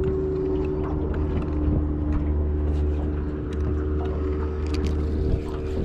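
Electric trolling motor running with a steady whine that drops a little in pitch about a second and a half in, over a low rumble, with scattered light ticks.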